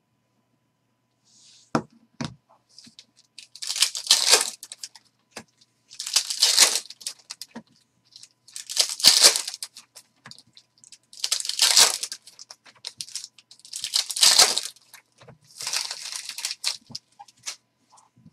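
Foil trading-card pack wrappers being torn open one after another: six crinkly rips, each about a second long and roughly two and a half seconds apart. A couple of sharp clicks come just before the first one.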